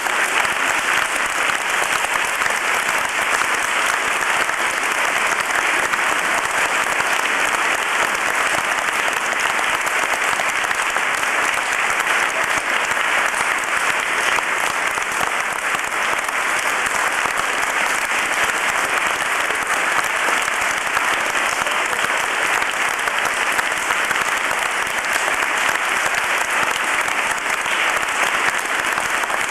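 Concert audience applauding with steady, dense clapping.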